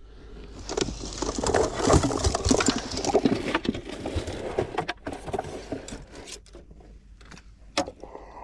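Rummaging through gear in the back of a van: a few seconds of dense clattering and scraping, then scattered knocks and clicks.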